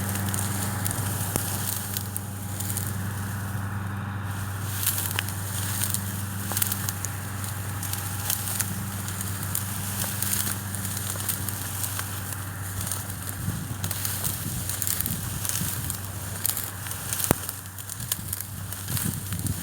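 New Holland 8060 combine harvester running with a steady low drone, overlaid by dense crackling throughout.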